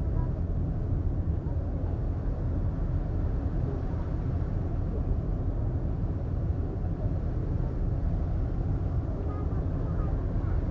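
Steady low rumble of a car ferry under way, heard from its open deck, even throughout with no sudden events.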